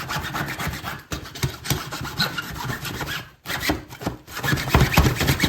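Hand saw sawing in fast back-and-forth strokes into a box built up of tape, plastic and drywall layers, with a brief pause about three and a half seconds in.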